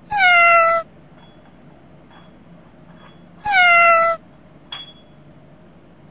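A cat meowing twice, a few seconds apart; each meow is short and falls in pitch. A brief click follows shortly after the second meow.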